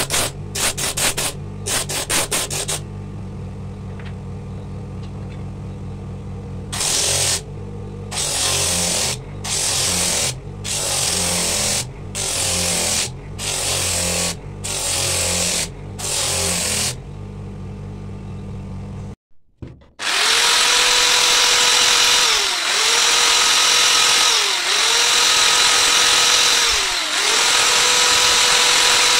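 A motor-driven sanding disc running with a steady low hum, as a piece of coconut shell is pressed to it in quick strokes and then in strokes about once a second. About two-thirds of the way through it gives way to a hand-held rotary tool carving coconut shell, a loud steady whine that dips in pitch every couple of seconds as the bit bites under load.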